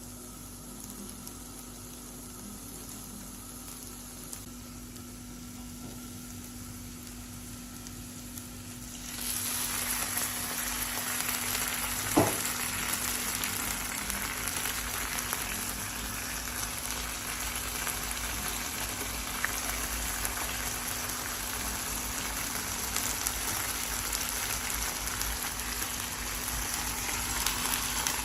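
Chicken wings frying in hot oil. After a quiet stretch with only a faint steady hum, a loud sizzle starts suddenly about a third of the way in and keeps going, with a single sharp knock shortly after it starts.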